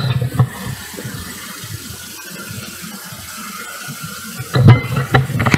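Road traffic on a city street: a steady rushing of passing cars, with a few low thumps and knocks close to the microphone near the end.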